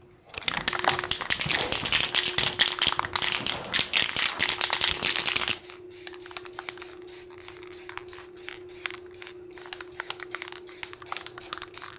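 Aerosol spray-paint can hissing in a run of quick sprays for about five and a half seconds, then cutting off. After that come light scattered clicks and taps of small parts being handled, over a faint steady hum.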